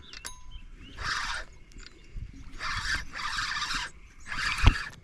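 Fishing reel drag buzzing in short half-second bursts, about four times, as a hooked blue catfish pulls line off in surges. There is a low thump near the end.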